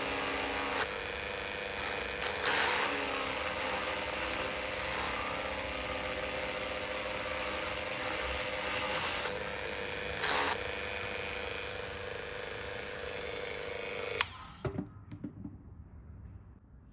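Dremel rotary tool with a diamond drill bit running steadily, drilling holes through abalone shell. It cuts off near the end with a click, followed by a few light knocks.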